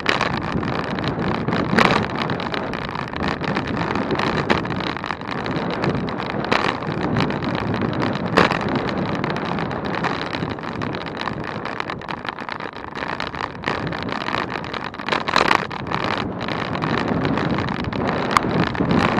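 Wind rushing over the microphone of a moving bicycle, mixed with road noise, broken by several short sharp knocks.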